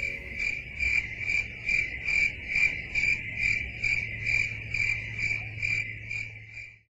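A cricket chirping in a steady rhythm, about two and a half chirps a second, stopping abruptly near the end.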